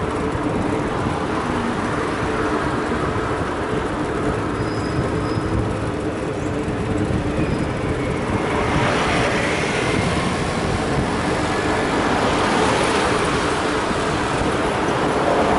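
Steady street traffic and road noise heard from a moving bicycle, with a constant low hum under it. It grows louder and hissier about halfway through.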